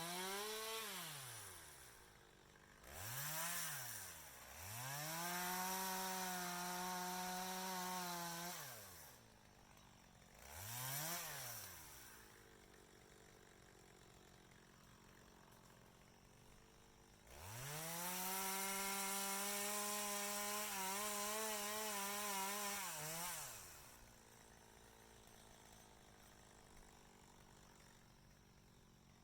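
Two-stroke chainsaw revved to full throttle five times: three short blips and two longer held runs of a few seconds each, the engine note climbing steeply and falling back to a low idle between.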